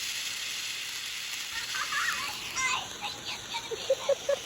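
A lit firework burning with a steady hiss. A few short squeaky chirps come about halfway through, and four quick short tones come near the end.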